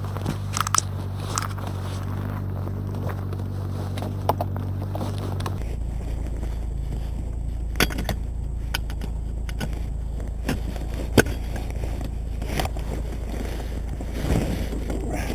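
Scattered knocks, clatter and scrapes of a Veloped rollator's tubular metal frame and knobby wheels being handled and lifted out of a car boot, with the loudest knock about eleven seconds in. A steady low hum runs underneath and changes character about five seconds in.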